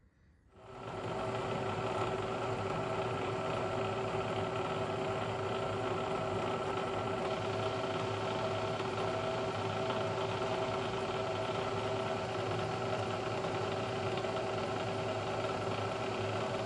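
A machine tool's electric motor and spindle starting up, spinning up over about a second, then running steadily with an even hum and whine.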